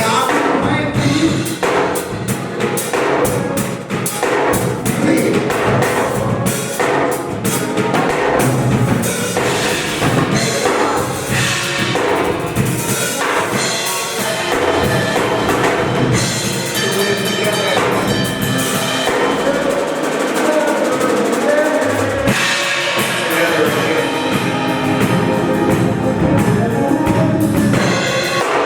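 Church band playing instrumental music with a drum kit keeping a steady beat.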